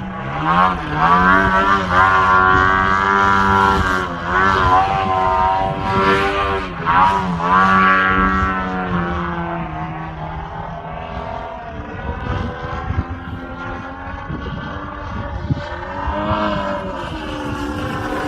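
Large-scale RC aerobatic plane's DLE130 twin-cylinder two-stroke petrol engine with JMB silencers, turning a 28x10 propeller. Its pitch rises and falls repeatedly as the throttle changes through manoeuvres, then it runs more steadily and a little quieter in the second half. Wind rumbles on the microphone underneath.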